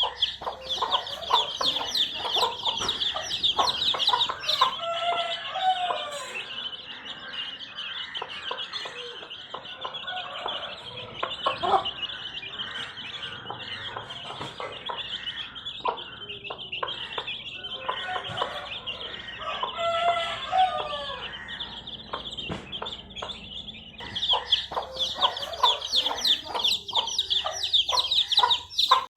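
A flock of baby chicks peeping constantly, many high chirps overlapping, busiest at the start and again in the last few seconds. Now and then lower clucking calls sound among them, as of a mother hen calling her chicks.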